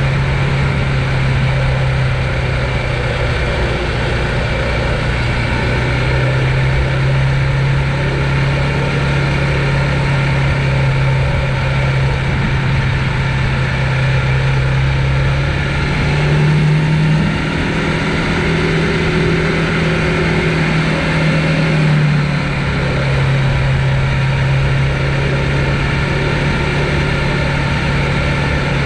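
Conway EMC 529 e-mountain bike's motor humming steadily as it drives the bike. Its pitch steps up a little for several seconds past the middle, then settles back, over a steady rushing noise.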